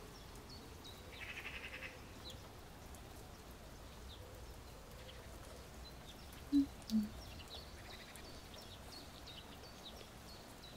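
Faint background ambience of small birds chirping, with two short low sounds close together a little past the middle.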